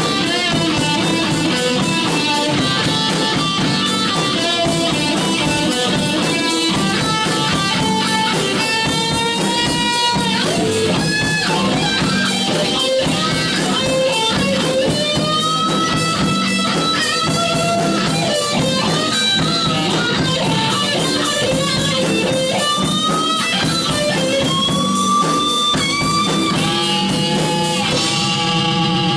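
Live rock band playing, led by a Stratocaster-style electric guitar soloing, its single notes bending and wavering in pitch over drums and bass.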